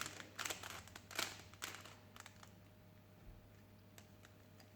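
Plastic clicking and rattling of a Rubik's cube's layers being turned in quick succession, thinning to a few faint ticks after about two and a half seconds.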